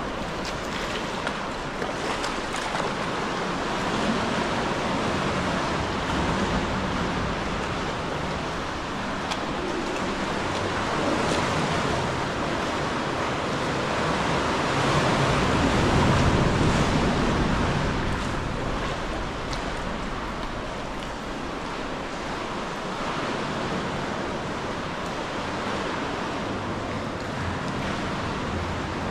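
Sea swell washing and surging inside a sea cave: a steady rushing of water that grows louder for a couple of seconds around the middle.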